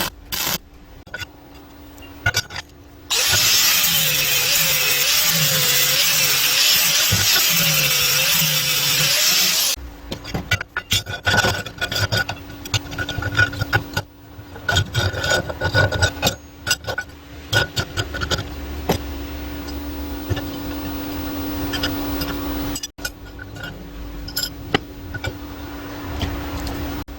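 A power saw cutting for about six seconds, starting about three seconds in; its motor pitch wavers as it works through the cut. Before and after it come irregular clicks and knocks from handling tools and material, over a steady hum.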